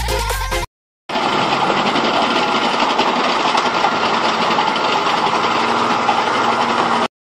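Background music ends under a second in; after a brief gap, a small battery-powered electric motor in a plastic toy dump truck whirs steadily for about six seconds, then cuts off suddenly near the end.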